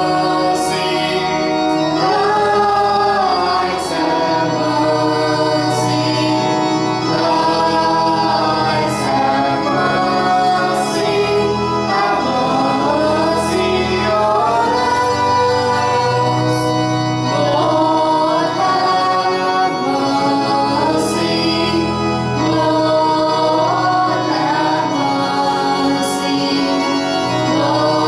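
A choir singing a church hymn over steady instrumental accompaniment.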